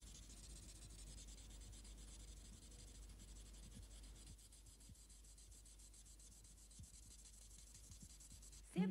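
Near silence: faint hiss and a low hum, with music starting right at the end.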